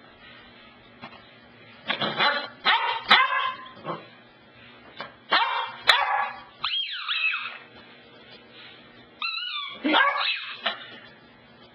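Beagle puppy barking and yipping in three short bouts, some calls drawn out into whiny cries that slide up and down in pitch.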